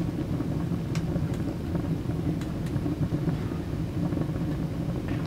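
Wood fire burning in a small camping wood stove: a steady low rush with a few sharp crackles and pops scattered through it.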